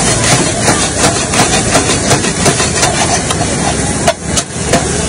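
Eggs frying in a large wok of hot oil and onion masala: a loud, dense sizzle with crackling spatter. The sizzle drops briefly about four seconds in.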